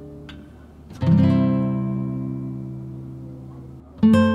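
Background music of strummed acoustic guitar: a chord struck about a second in rings and fades, and another comes in near the end.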